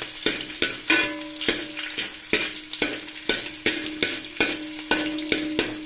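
Green chillies, garlic and ginger sizzling in hot oil in a large metal pan, with a sharp tap about three times a second and a steady low hum underneath.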